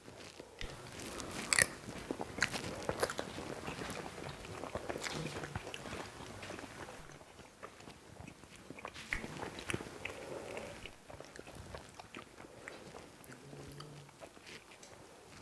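People chewing mouthfuls of a plated duck dish, with quiet mouth sounds and small clicks of forks on plates.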